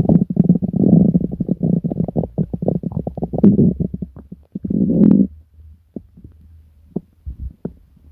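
Human stomach growling and gurgling, the sign of an upset stomach: a deep, rumbling run of rapid bubbling pops for about five seconds, then only a few small gurgles and clicks.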